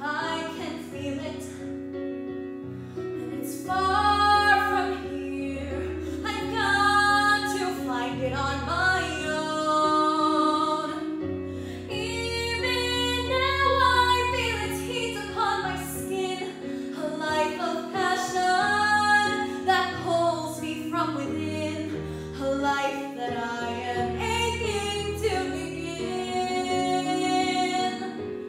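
A young woman singing a musical-theatre solo, with long sustained phrases, over a steady instrumental accompaniment of held lower notes.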